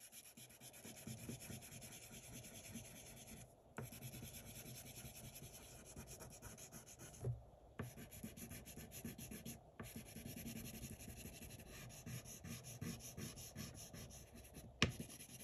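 Crayon rubbed rapidly back and forth across paper as an area is colored in: a fast, faint rubbing that breaks off briefly a few times, with one sharp tap near the end.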